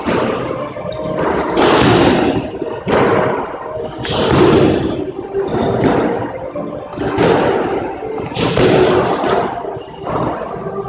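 Strikes landing on padded focus mitts: a series of sharp smacks, roughly one every second or so, each ringing out in a long echo off the squash court's bare walls.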